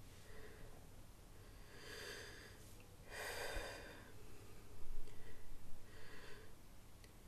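A person breathing audibly through several breaths, with a heavier, louder breath about three seconds in.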